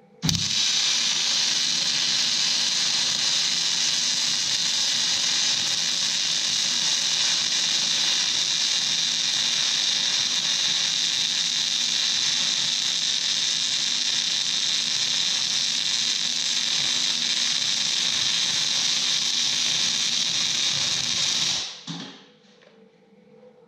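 Electric arc welding on a steel tractor linkage hook: the arc's steady hiss runs as one unbroken weld bead of about 21 seconds and cuts off suddenly near the end.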